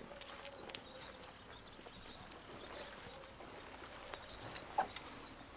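Quiet outdoor ambience: a faint steady hiss with a few small clicks and one short sound just before the end.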